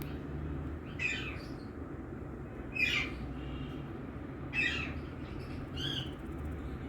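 Indian ringneck parakeet giving four short, harsh squawking calls, spaced about every one and a half to two seconds, over a steady low hum.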